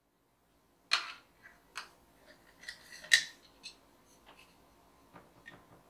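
A glass jar being opened and handled at a kitchen counter: a string of small, sharp clicks and taps from the lid, glass and fingers. The sharpest tap comes about three seconds in.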